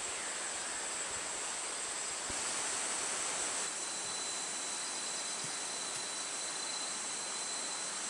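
Rainforest ambience: a steady hiss under an even, high-pitched insect drone. About four seconds in the sound shifts slightly and a thin, high steady whine joins it.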